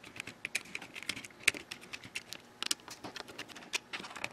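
Irregular light clicks and taps from hands and a small screwdriver working the plastic case of a digital pitch gauge as its screws are taken out and the case is pulled apart.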